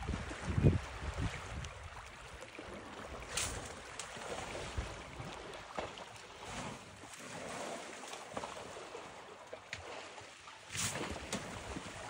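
Water sloshing and splashing as an African elephant rolls and wallows in a muddy waterhole, with heavy low sloshes right at the start and sharper splashes about three and a half seconds in and again near the end.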